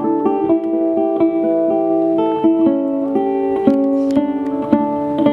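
Portuguese guitar playing a melody of quick plucked notes that ring on, with no singing.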